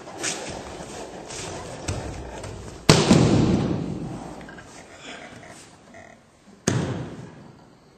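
A body slamming down onto judo mats during a kneeling takedown: a loud thud about three seconds in, then a second, lighter thud near the end, with softer scuffs and knocks on the mat before the first.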